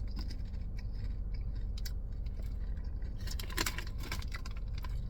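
Crunching and chewing of dried pineapple chips: irregular crisp crackles, thickest about three and a half seconds in, over a steady low rumble.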